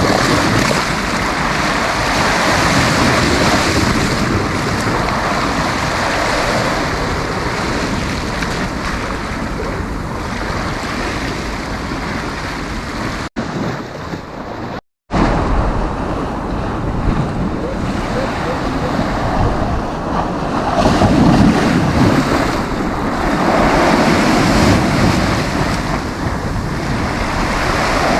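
Sea waves washing onto a beach, a steady surf hiss that swells and eases, with wind buffeting the microphone as a low rumble. The sound cuts out briefly twice about halfway through.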